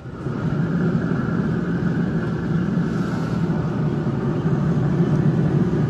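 Steady loud machine hum and rumble, with a fainter higher whine above it.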